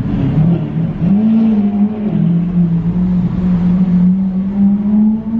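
A car engine running loud, its pitch rising and falling over the first second or so, then holding steady and climbing a little near the end.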